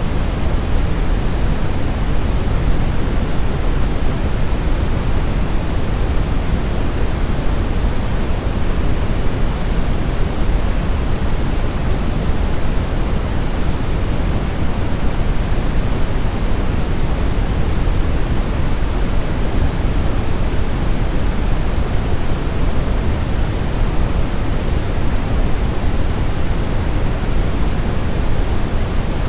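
Steady brown noise: a constant, even rush with most of its weight in the low end, unchanging throughout.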